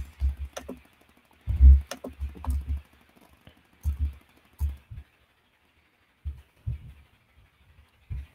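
Typing on a computer keyboard: irregular clusters of key clicks with dull thumps, with a pause of about a second between roughly five and six seconds in.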